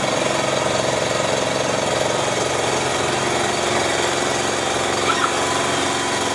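A boat's engine running steadily at an even pitch.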